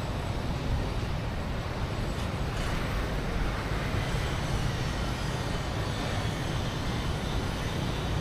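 Steady vehicle noise: a continuous low rumble with hiss, unbroken throughout.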